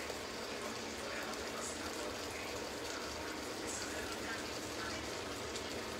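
Fish stew (brodetto) and fish stock simmering on the hob: a steady bubbling hiss with scattered small pops.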